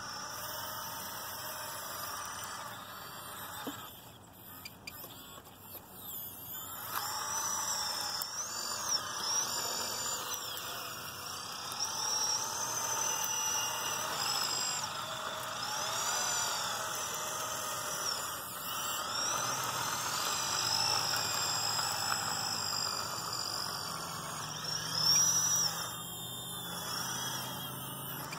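Small electric drive motors and gearboxes of an RC Cat 963 track loader whining, the high whine rising and falling in pitch as it starts, stops and changes speed.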